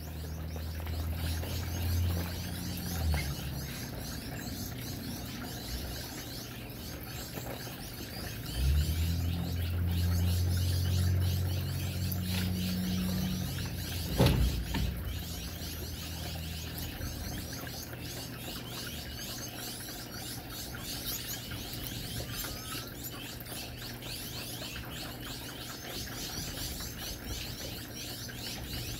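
Gouldian finches and other small aviary finches chirping and twittering steadily. A low hum comes in for the first few seconds and again from about nine to thirteen seconds, and a single knock comes about fourteen seconds in.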